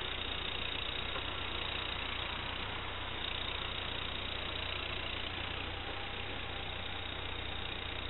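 Tractor engine running steadily.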